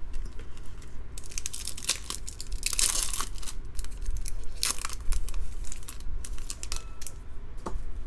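A foil trading-card pack, a 2015 Bowman Draft hobby pack, being torn open by hand, its wrapper crinkling and crackling in bursts. The loudest burst comes about three seconds in and a shorter one about five seconds in.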